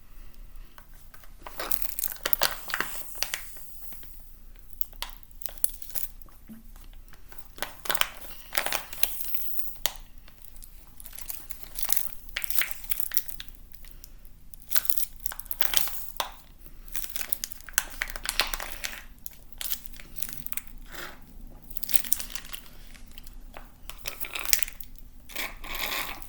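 Plastic crinkling and crumpling in irregular crackly bursts, with some tearing.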